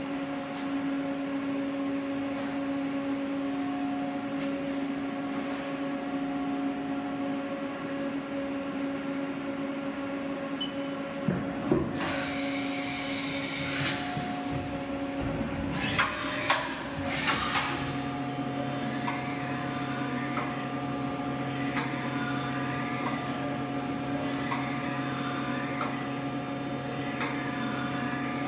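2007 Haas OM-2A CNC vertical mill running: a steady machine hum with a burst of hissing about twelve seconds in and a few knocks around it. From about two-thirds of the way through, a steady high whine joins, with rising and falling whines over it.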